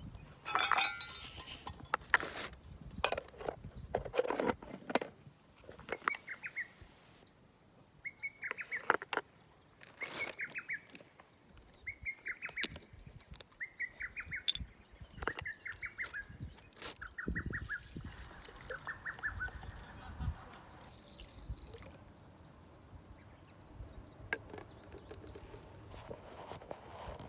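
A bird calling over and over with short, fast trills, about one every couple of seconds through the middle, and a thin higher whistle now and then. Sharp clicks and knocks in the first few seconds.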